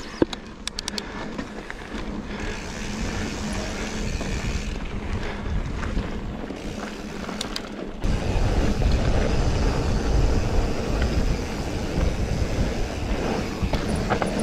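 Orange Stage 6 mountain bike running down singletrack over smooth pebbles: tyre roar and frame rattle, with a few sharp clicks in the first second. The low rumble steps up about eight seconds in.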